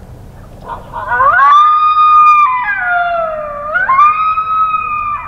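A loud, long coyote-type howl: it rises into a held note, breaks and slides down, then jumps back up to the held note and stops near the end.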